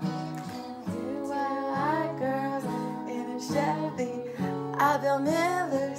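Music: strummed acoustic guitar with a singing voice.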